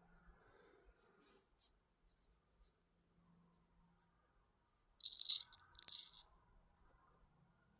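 Small pieces of gold rattling in a little scale pan as they are tipped in, a brief high rattle about five seconds in after a couple of faint ticks.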